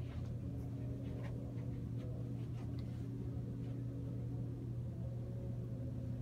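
Steady low room hum with a few faint light taps scattered through it.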